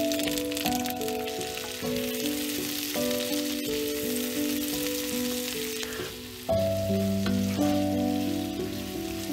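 Halved cherry tomatoes sizzling and frying in garlic butter in a frying pan, a steady crackling hiss. Background music plays over it and grows louder with deeper notes about two-thirds of the way in.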